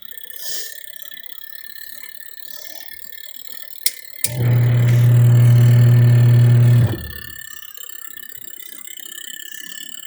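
Twin tub washing machine's wash motor switched on after a couple of sharp clicks, running with a loud, steady electric hum for about two and a half seconds before cutting off abruptly.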